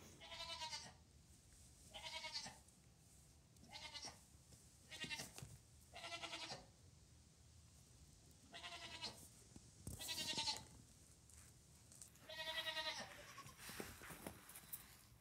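Newborn Nigerian Dwarf goat kid bleating over and over: about eight short, high, quavering bleats a second or two apart.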